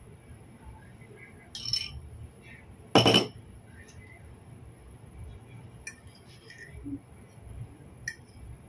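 Metal cutlery clinking against ceramic dishes as salad is spooned from a bowl onto a plate. There is a louder clatter about three seconds in and a few lighter clinks later.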